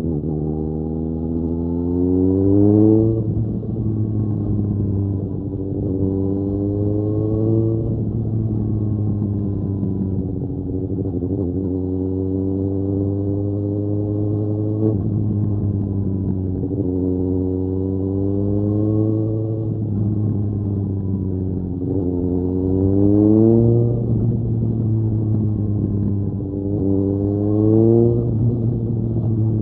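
Suzuki GSX-S750's inline-four engine through a Mivv Storm aftermarket exhaust while riding. The engine pitch climbs under throttle and drops back again, about six times, every four to five seconds.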